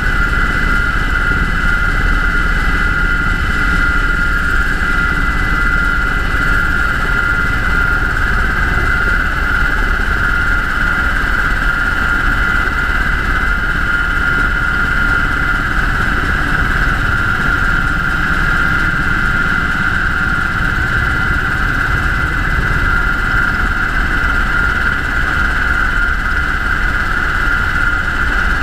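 UH-60 Black Hawk helicopter in flight: its twin turboshaft engines and rotors running steadily, with a strong high-pitched whine over a constant low rumble.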